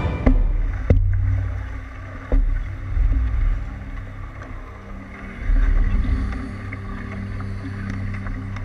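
A wooden paddle working a canoe through the water, over a low rumble of water and wind that swells and fades with the strokes. There are a few sharp knocks in the first few seconds, which fit the paddle striking the side of the canoe.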